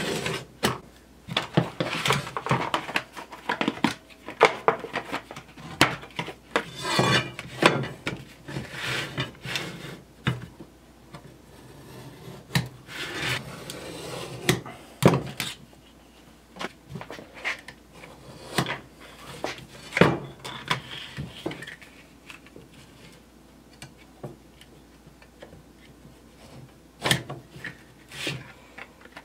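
Utility knife drawn repeatedly along a metal square, scoring and cutting a flattened plastic windshield-washer jug. Irregular scraping strokes, with sharp ticks as the blade and square shift on the plastic.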